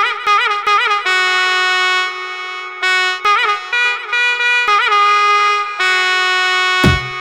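Solo violin (kamanja) playing a slow Egyptian sha'bi melody, with quick ornamented turns between long held notes. Near the end, drums and a bass come in.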